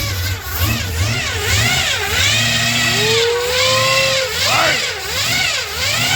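1976 Chevy Nova's small-block Chevy V8 with a gear-drive timing set, running and being revved over and over, the pitch climbing and dropping back about once a second.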